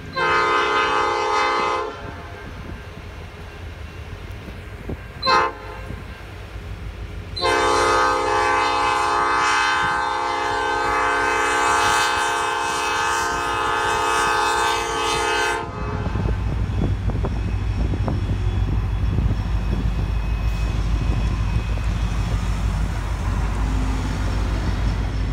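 Norfolk Southern diesel locomotive's air horn sounding for a grade crossing: a short blast, a brief toot about five seconds in, then a long blast of about eight seconds. Once the horn stops, the locomotive's diesel engine rumbles past low and heavy, with wheels clicking over the rails.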